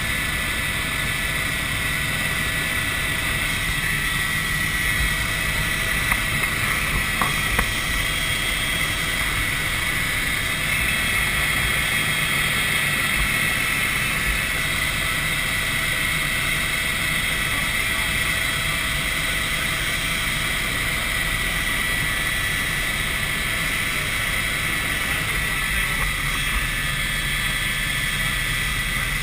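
Helicopter in flight heard from inside the cabin: steady rotor and engine noise with a constant high whine.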